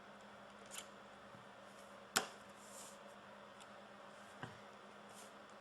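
A few small clicks and taps from handling a smartphone's plastic parts, the sharpest just after two seconds in, over a faint steady hiss.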